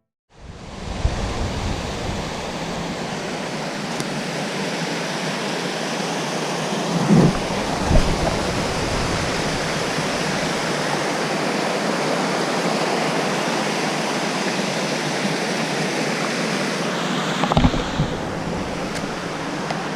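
Waterfall rushing steadily, with a few brief low bumps on the microphone, about a third of the way in and again near the end.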